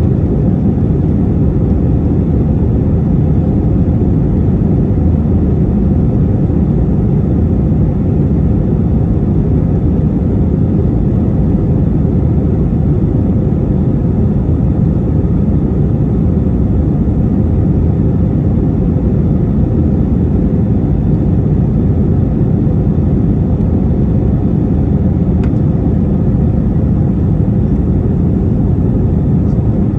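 Airbus A321-231's cabin noise in climb: a steady, loud rumble of the IAE V2500 engines and airflow, with a faint steady high tone above it.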